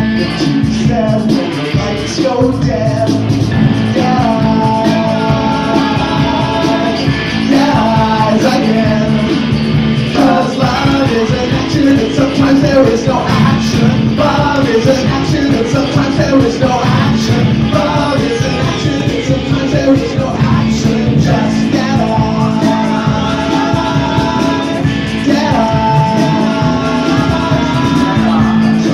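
Rock band playing live: electric guitars, bass guitar and drums at full volume, with a sung vocal line held in long notes at times.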